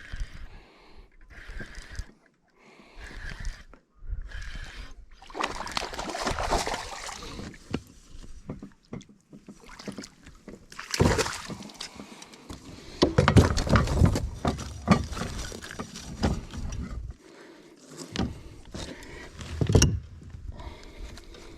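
Handling noises aboard a fishing kayak on the water: irregular knocks, rustles and water sounds, with louder stretches about five, eleven and thirteen seconds in and a sharp knock near the end.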